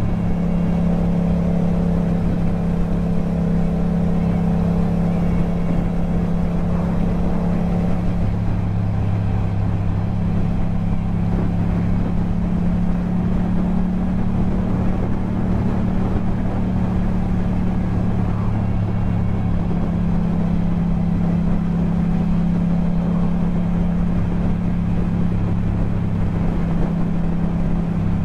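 Yamaha MT-07's parallel-twin engine running at a steady cruise through an Akrapovic exhaust, with an even, unchanging engine note.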